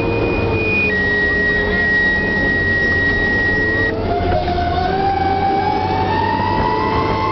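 Inside a Seagrave fire engine's cab, its engine running. A two-tone radio page sounds: a high tone for about a second, then a slightly lower tone held for about three seconds. From about four seconds in, the siren starts to wind up, its pitch slowly climbing.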